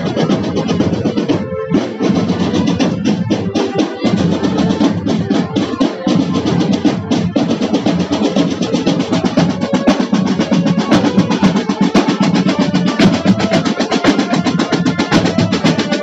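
Marching band's snare and bass drums playing a steady, dense marching beat as the band parades.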